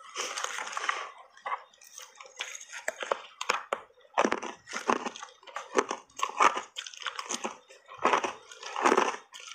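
Biting and chewing hard reshaped ice coated in thick matcha tea powder, close-miked: a run of loud, irregular crunches.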